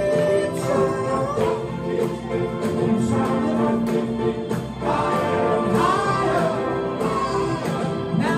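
A vocal group singing live: a lead voice over backing harmonies holding chords, through microphones and a PA speaker.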